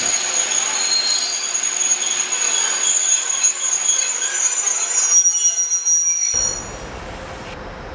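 Vintage passenger coaches rolling past at close range, their wheels squealing on the rails with several steady high-pitched tones over the rolling noise. The sound drops away abruptly about two-thirds of the way through, leaving a quieter steady background.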